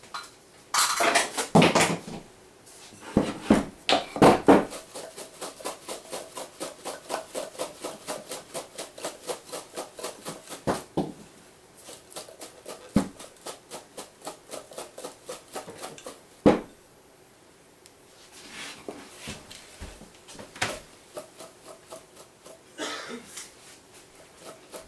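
A spoon stirring sliced apples in a glass mixing bowl, clinking and scraping against the glass in a steady rhythm of about three to four strokes a second, with a few louder knocks near the start.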